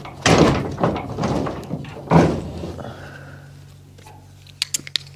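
Metal knocks and rattles on the side wall of a Krone Emsland three-way tipper trailer as its locking bolt is worked into place: three loud knocks in the first couple of seconds, each ringing out briefly, then a few light clicks near the end.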